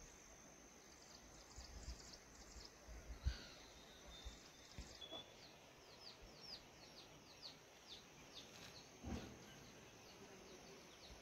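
Faint, quiet rural ambience: a thin, steady, high insect drone. From about five seconds in, a bird gives a quick run of short, falling chirps, two or three a second. A few soft thumps are scattered through.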